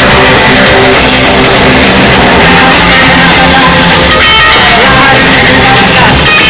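Live rock band playing loudly: drums and electric guitar, with no break in the music.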